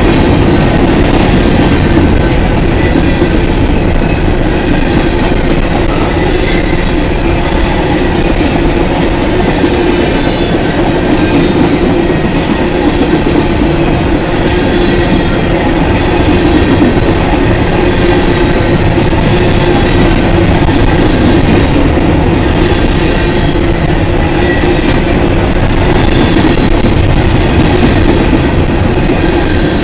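A freight train of covered hopper cars rolling past: a loud, steady rumble and rattle of steel wheels on the rails.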